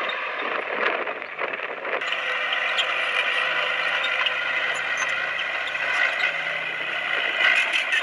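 Komatsu bulldozer working, its engine and running gear making a steady mechanical din that shifts and grows fuller about two seconds in.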